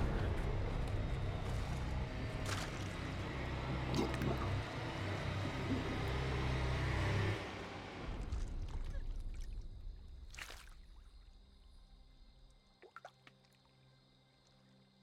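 Heavy rain pouring onto shallow water and mud, with a low rumble beneath. The rain is loud for the first seven seconds or so, then fades steadily until only a faint low drone is left near the end.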